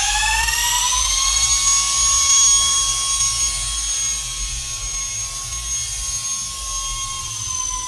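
Twin 30 mm electric ducted fans of an E-flite UMX Citation Longitude RC jet spooling up in a rising whine over the first second or so, then holding a steady high-pitched whine that dips slightly near the end.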